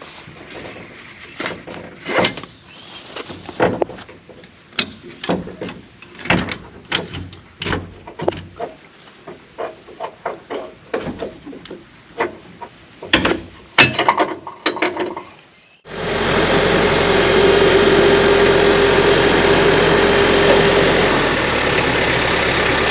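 Ratchet strap being released from a loaded trailer: a string of sharp clicks and clacks of the ratchet buckle and webbing. About two-thirds of the way in, this gives way abruptly to a TYM T494 compact tractor's diesel engine running steadily.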